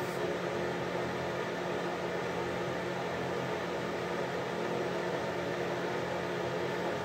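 Vintage metal ceiling exhaust fan running steadily: an even rush of air with a low motor hum underneath.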